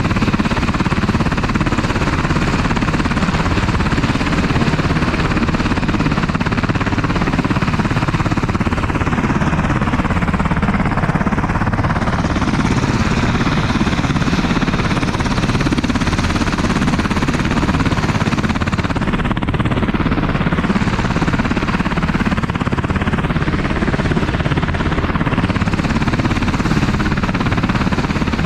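UH-60 Black Hawk helicopter running close by: a loud, steady rotor chop over turbine noise.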